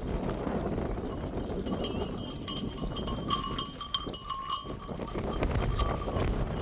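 Livestock with a bell moving about: the bell rings in short repeated strokes from about two and a half seconds in, with scattered knocks, over a low rumbling background.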